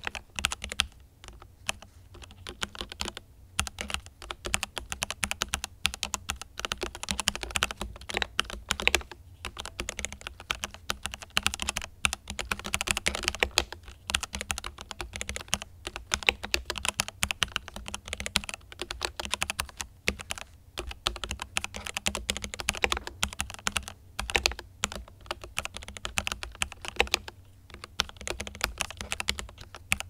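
Keychron K8 Pro mechanical keyboard with Gateron G Pro Red linear switches and PBT double-shot keycaps, typed on at a brisk steady pace: a dense run of key clacks broken by a few short pauses.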